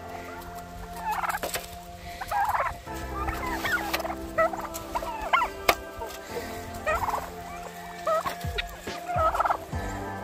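Turkey gobbling over and over, in short warbling bursts about every second or so. A few sharp clicks come in between, the loudest about halfway through.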